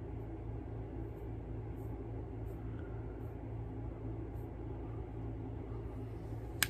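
Steady low background hum of a small room, with one short sharp click near the end.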